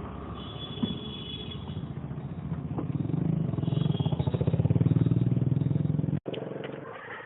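An engine running with fast, even pulses, growing louder over a few seconds and then cutting off abruptly.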